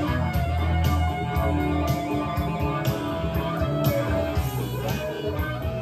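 Blues-rock song with guitar and a steady drum beat, played off tape through the Nakamichi Dragon cassette deck's tape monitor as it records.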